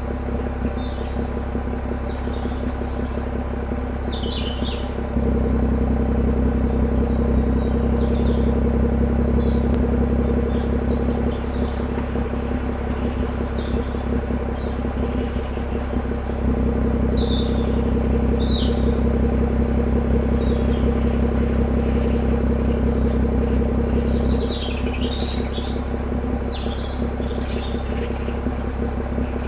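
BMW M140i's 3.0-litre turbocharged straight-six idling steadily through its M Performance exhaust. The idle note steps up in level about five seconds in and again about sixteen seconds in, and drops back near the end. Birds chirp throughout.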